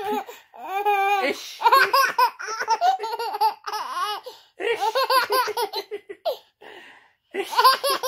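A toddler laughing hard in repeated high-pitched bouts, with short breaks for breath between them.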